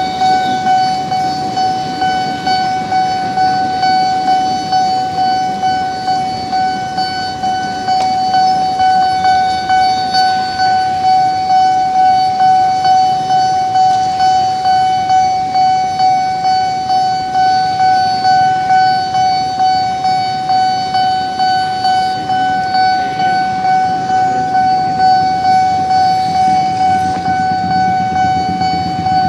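Railway level-crossing warning bell ringing without pause, a single steady ringing tone pulsing at about two strokes a second.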